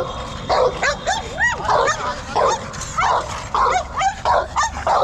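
Pit bull barking and yelping excitedly in a rapid run, two or three calls a second, some rising and falling in pitch like whining yelps.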